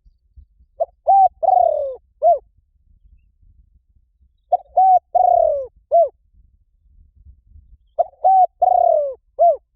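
Spotted dove cooing: three identical phrases about three and a half seconds apart. Each phrase is a few short coos with a longer, falling coo near the end.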